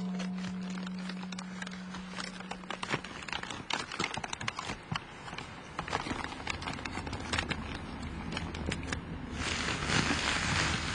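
A gong's ringing tone dies away over the first three seconds, with scattered sharp crackling clicks throughout; about nine seconds in a dense steady hiss sets in under the crackles.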